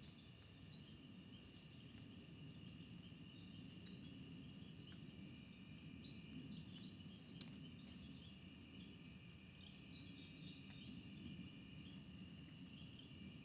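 A chorus of crickets and other insects trilling steadily at several high pitches, with a low rumble underneath and a few faint scattered chirps. It is a thin chorus, which the uploader takes as a sign of fewer frogs and insects in these woods than in 1999.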